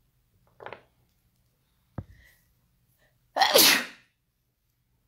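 A woman sneezes once, loudly, a little past the middle, with a falling voiced cry in it. Before it come a short faint breath and a single sharp tap about two seconds in.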